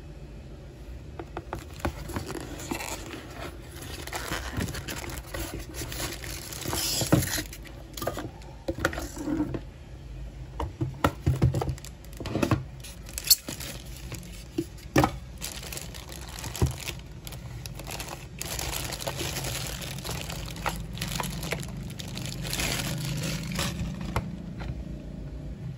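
Clear plastic wrapping crinkling and rustling as a mini waffle maker is unpacked from its foam packing and cardboard box, with irregular clicks, knocks and scrapes as the appliance and its cord are handled.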